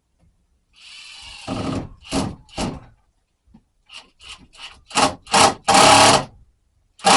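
Woodworking noise: a scrape of wood against wood about a second in, then sheetrock screws driven into the wood by a power drill in several short bursts and two longer runs near the end.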